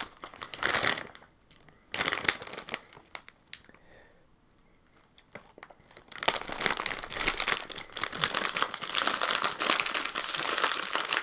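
Snack bags crinkling as they are handled: two short bursts, a quiet pause, then dense continuous crinkling from about six seconds in as a bag of Cheetos Popcorn is handled and pulled open.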